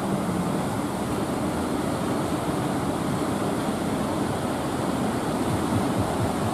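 Ocean surf breaking and washing around a boat, with a steady low rumble underneath.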